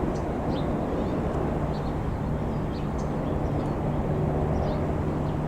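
Steady low drone of distant engine noise, with short, high bird chirps scattered through it.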